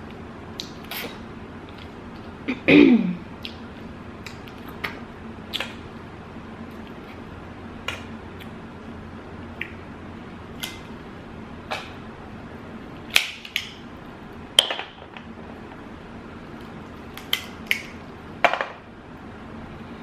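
Close-up eating sounds from a seafood boil: scattered sharp clicks and taps of cutlery, dishes and food being handled, over a steady low hum. A short falling tone about three seconds in is the loudest thing.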